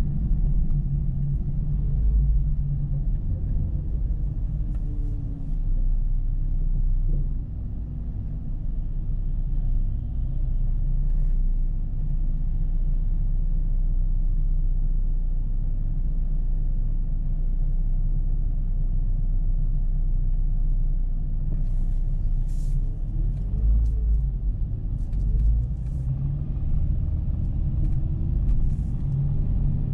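Dodge Charger 3.5 driving, a steady low rumble of engine and road noise, with the engine pitch rising and falling faintly as the speed changes. A few brief light ticks come near the end.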